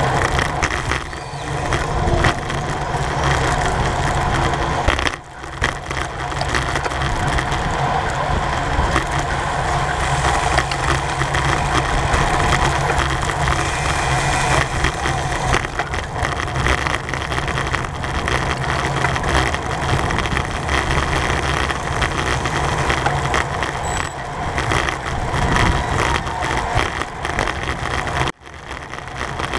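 Rushing wind and road noise on a bike-mounted camera's microphone at racing speed, a steady loud rush with a deep rumble underneath. It drops away sharply for a moment about five seconds in and again near the end.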